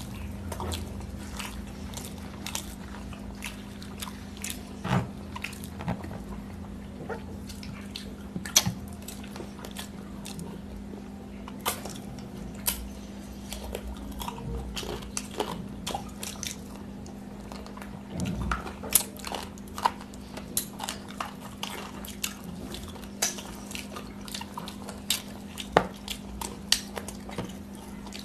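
Close-miked eating sounds of two people eating rice and chicken curry by hand: chewing, biting and lip-smacking, with many short wet mouth clicks and smacks over a steady low hum.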